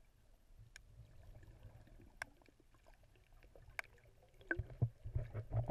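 Muffled underwater water sound picked up by a submerged action camera: a faint low rumble with scattered sharp clicks. About four and a half seconds in it turns into louder low thumps and gurgling as swimmers' fins churn the water near the camera.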